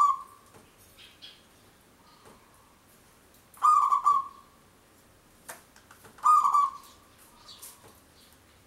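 Zebra dove (perkutut) cooing: short rolling coos of under a second each, repeating about every two and a half seconds.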